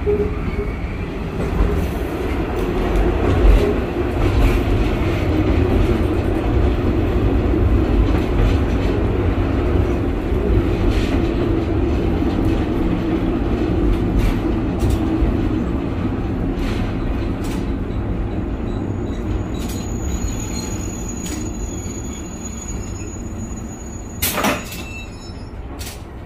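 Diesel railcar running, heard from inside at the cab: engine drone and rail rumble that fade as the train slows into a station. A faint high brake squeal comes in over the last few seconds, with a short burst of noise near the end.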